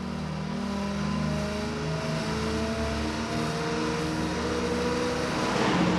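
Car engine pulling away and accelerating, with road noise that grows louder and a rushing swell near the end as traffic passes close by.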